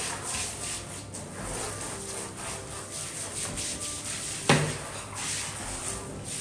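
Hand shower spraying water into a bathtub while it is rinsed out, with one sharp knock about four and a half seconds in as the shower head is handled against the tub.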